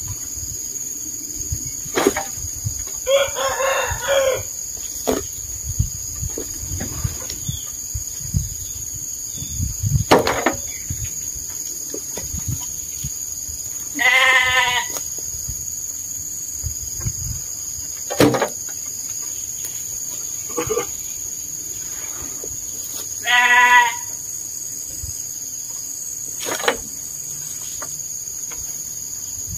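A shovel scraping into a heap of sheep dung and knocking as it is loaded into a wheelbarrow, with farm animals calling three times, each call about a second long, over a steady high insect drone.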